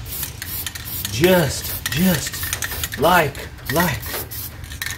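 Aerosol can of high-heat paint hissing in short sprays against a truck's brake booster. A voice hums four short notes that rise and fall between the sprays.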